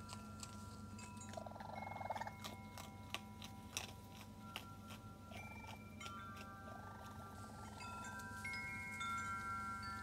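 Wind chimes ringing several steady high notes, with sharp clicks of raccoons crunching kibble on a wooden deck. A few short trilling chirps, about two seconds in and again after five seconds, are the raccoon kits calling.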